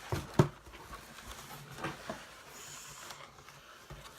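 A few light knocks and handling noises from a shipping package being handled, with a sharp knock near the start and two softer ones around the middle.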